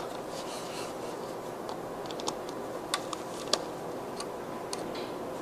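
A few irregular light clicks and ticks of a flathead screwdriver working the terminal screw of a lamp holder as the hot wire is fastened, over a faint steady hiss.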